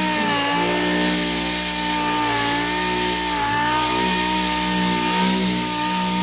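Electric power sander running steadily against a plastic headlight lens, a continuous motor whine with a slightly wavering pitch over a hissing scrub.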